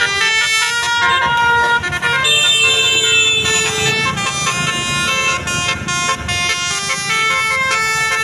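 Basuri multi-tone bus horn (telolet) playing a melody: a quick run of loud horn notes, with one longer held note near the middle.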